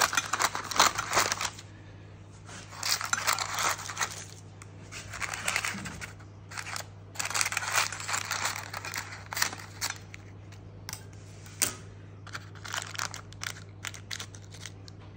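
Scissors snipping and crinkling the baking-paper lining of a cake tin, in several short bouts with pauses between, over a steady low hum.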